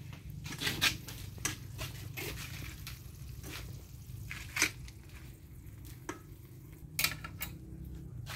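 A metal spoon scraping and knocking inside a stainless-steel pot as cooked rice is scooped out, in scattered clicks and scrapes over a low steady hum.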